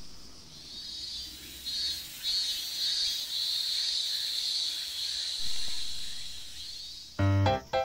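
Insects singing in a summer garden: a high, steady buzz that wavers and pulses in loudness. Music with clear pitched notes comes in near the end.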